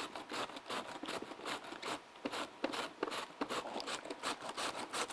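Green cabbage pushed back and forth over a mandoline slicer's shredding blade: a quick run of rasping strokes, several a second, shredding it fine for slaw.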